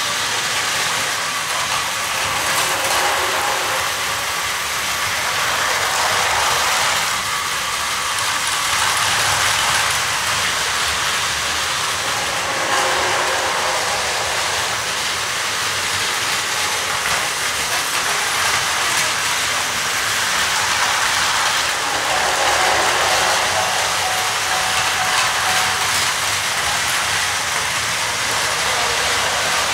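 Battery-powered Plarail toy trains running on plastic track: a steady whir of small motors and gears with wheel rattle, swelling and fading every few seconds as the trains come near and move away.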